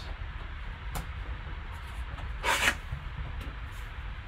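Gloved hands rubbing and sliding on a large cardboard box, with a light knock about a second in and one louder scrape of cardboard about two and a half seconds in, over a steady low hum.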